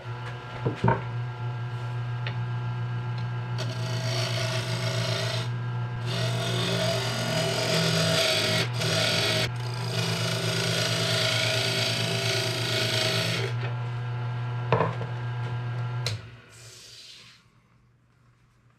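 Harbor Freight benchtop mini wood lathe running steadily while a gouge makes a cleanup cut on a spinning wooden bowl blank, the cutting hiss coming in several passes over the motor's hum. Near the end the lathe is switched off and spins down to near silence.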